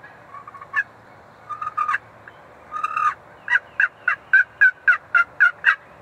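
Turkey yelping: a few softer, rougher notes in the first half, then a run of about eight sharp, evenly spaced yelps, about four a second.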